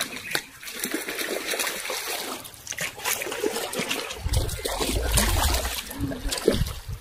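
Water splashing and trickling as a hooked snakehead thrashes at the surface near the boat. A low rumble rises about four seconds in and lasts a couple of seconds.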